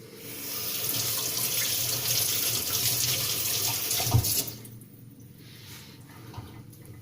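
Water running steadily from a tap for about four and a half seconds, rinsing slurry and metal deposits off a sharpening stone, then cut off; a low thump just before it stops.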